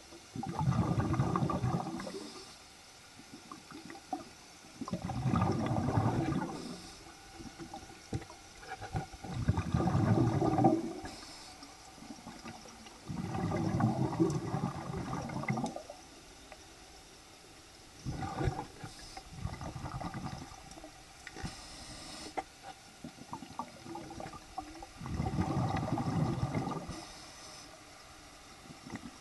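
Exhaled air bubbling underwater in a pool, heard from below the surface. It comes in bursts a few seconds apart, each lasting one to three seconds, with short faint hisses in between, much like a diver's breathing cycle.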